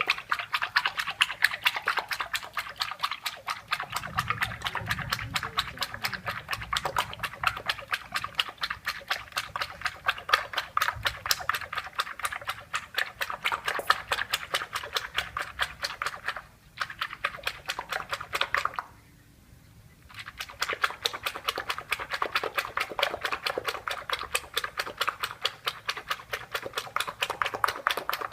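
Hot oil crackling and spitting in a frying pan as an egg fries: a dense, fast crackle that breaks off briefly twice.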